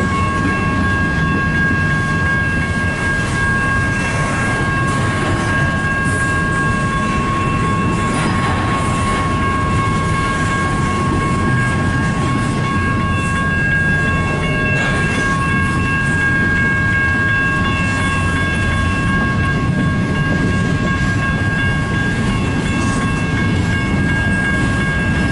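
Double-stack intermodal freight train's cars rolling past, a steady rumble with a steady high-pitched tone over it.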